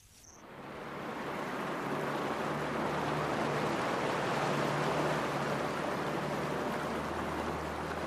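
Land Rover Defender 4x4 driving through shallow floodwater: a steady rush of splashing water thrown up by the wheels over the low hum of its engine, building up in the first second.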